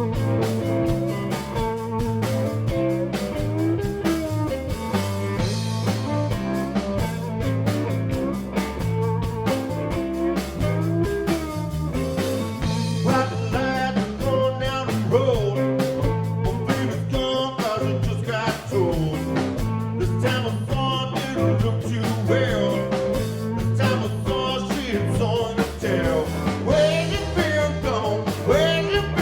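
Live blues-rock band playing an instrumental passage: electric guitar, bass guitar and drum kit keeping a steady beat, with a lead line full of pitch bends coming in about halfway through.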